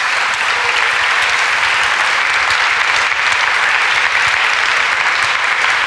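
Large audience applauding, a dense and steady clapping.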